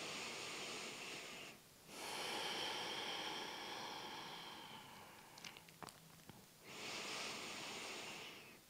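A woman's slow, deep belly breathing: three long breaths, the middle one fading out over about three seconds, with a few faint clicks between the second and third.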